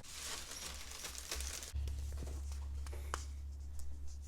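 Packaging rustling, with scattered light knocks and scrapes, as a PC case is worked out of its cardboard box.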